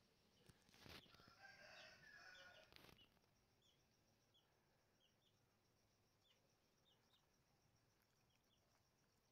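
A rooster crows faintly, once, for about two seconds, starting about half a second in. Short, faint high chirps come and go after it.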